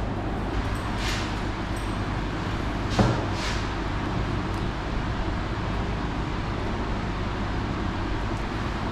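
Steady low background rumble, with a sharp knock about three seconds in and short hissing noises shortly before and after it.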